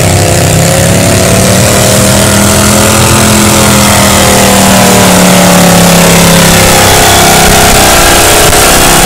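A super stock garden pulling tractor's engine running loudly and steadily as the tractor drives along the track. Its pitch drops a little about seven seconds in.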